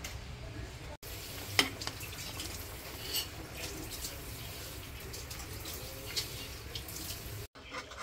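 Butter, cream and cream cheese sizzling and bubbling in a nonstick frying pan over a gas burner, a steady hiss, with a metal spoon stirring and knocking once sharply against the pan.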